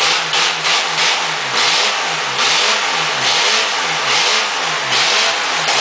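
Chevrolet Opala naturally aspirated straight-six engine being revved by hand at the throttle, in repeated short blips that rise and fall in pitch.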